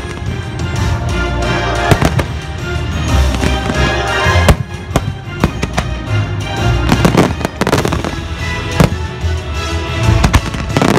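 Aerial fireworks shells bursting with many sharp bangs and crackles at irregular intervals, several in quick succession around the middle, over the show's loud musical soundtrack.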